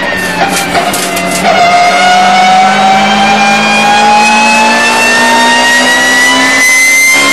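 Race car engine heard from inside the cockpit. A few sharp clicks come in the first second or so, then the engine note rises slowly and steadily as the car accelerates.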